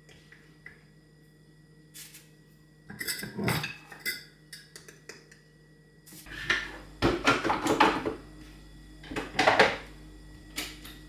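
Dishes and cutlery clattering and clinking in several short bouts, over a steady low hum.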